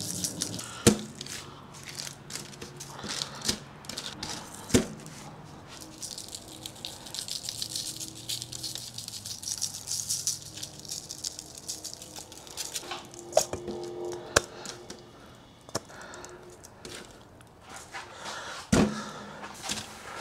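Dry spice rub shaken from a glass shaker jar, the granules rattling in the jar and pattering onto raw beef cheeks on a foil-lined sheet pan. A few sharp knocks stand out, the loudest about a second in and near the end.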